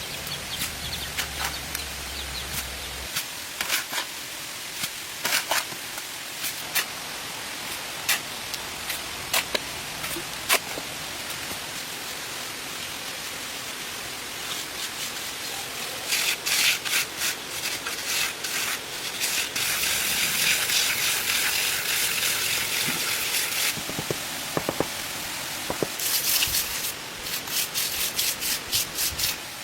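Masonry hand work: scattered knocks, then runs of quick scraping and rubbing strokes against brick and cement, with a longer steady scrape about two-thirds through, over a steady hiss.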